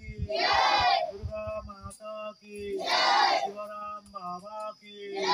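A group of children shouting "Jai!" together in answer to a man calling out a devotional slogan, a call-and-response jaikara. Two full shouts about two and a half seconds apart, and a third begins near the end, each following the man's single calling voice.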